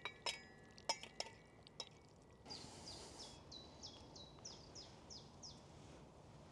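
A few sharp metal clinks from camping pots, a spatula and a pot gripper as pasta is scraped from one pot into another, in the first two seconds. Then a bird sings a run of about eight quick, high notes, each falling in pitch, over about three seconds.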